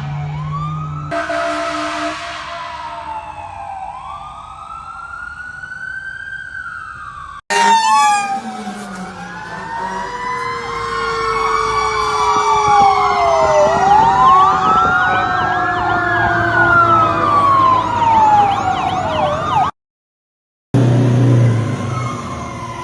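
Fire truck sirens, including a Federal Q mechanical siren, winding slowly up and down in pitch. Through the middle several sirens wail at once. The sound cuts out for about a second near the end, then another siren starts.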